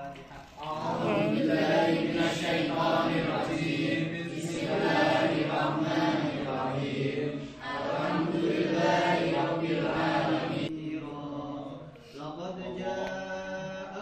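A group of voices chanting together in unison, reading a devotional chant from booklets, with long held, wavering notes. The chanting breaks off about ten seconds in, and quieter chanting resumes near the end.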